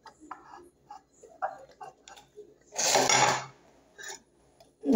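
A person eating with their fingers from a plate: soft chewing and mouth clicks with small taps on the plate, then one louder, noisy scrape or rush about three seconds in, followed by a few more light ticks.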